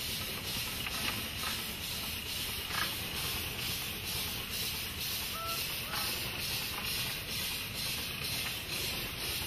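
Steady hiss of escaping steam from a steam traction engine, with a faint, even pulsing about four times a second.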